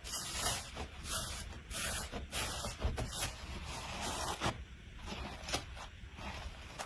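Hands squishing and stretching slime: an unbroken run of short crackles and squelches, uneven in loudness.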